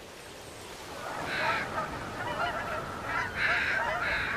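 A large flock of geese calling in flight, with many overlapping honks that swell from about a second in.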